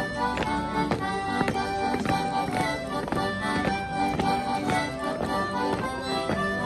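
Accordion playing a traditional dance tune for a longsword dance, with sharp clicks keeping time about twice a second.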